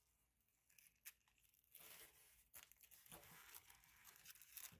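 Faint, intermittent crinkling and rustling of plastic packaging being pressed and adjusted by hand inside a cardboard box, more frequent after the first two seconds.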